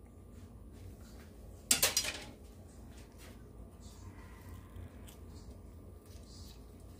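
Thin disposable plastic gloves crinkling as the hands squeeze a halved lemon over a bowl of flour dough, with one short burst of sharp crackling about two seconds in; otherwise faint handling sounds.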